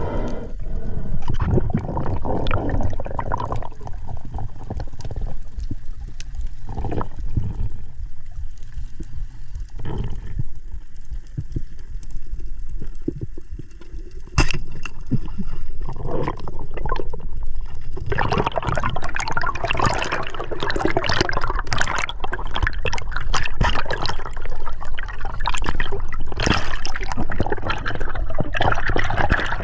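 Underwater water movement and gurgling, broken about halfway through by a single sharp snap as a wooden band-powered speargun fires; from a few seconds later the rushing and gurgling water gets louder and busier.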